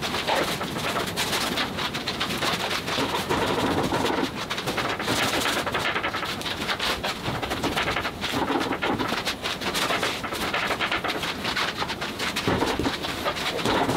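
Paint being brushed and scraped across a large canvas: a continuous rough swishing and scraping with many small irregular clicks.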